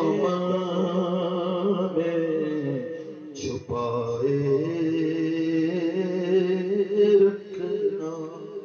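A man singing a naat, an Urdu devotional poem in praise of the Prophet, in long held notes with a wavering, ornamented melody. There is a short breath-break about three and a half seconds in, and the voice trails off near the end.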